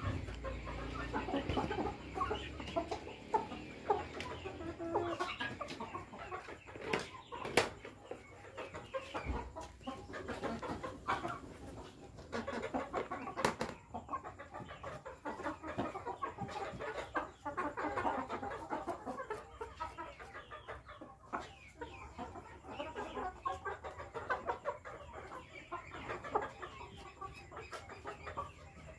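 A group of chickens clucking steadily as they feed, with scattered sharp taps of beaks pecking grain from a wooden trough.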